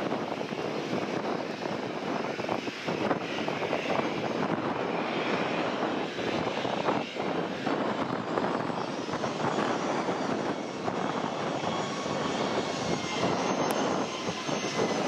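Jet aircraft engines running as a plane passes, a steady rushing noise with a faint high turbine whine coming in about halfway through; wind gusts buffet the microphone.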